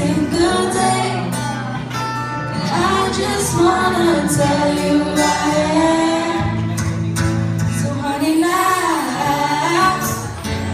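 Live pop ballad: a woman singing the lead into a microphone over guitar accompaniment, with steady held bass notes under the melody.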